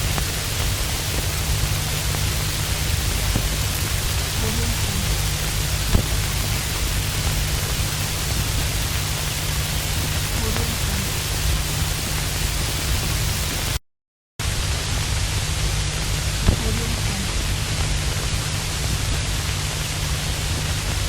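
Vinyl record surface noise: a steady crackling hiss over a low rumble, with scattered small pops. About two-thirds of the way through it cuts out completely for about half a second, then starts again.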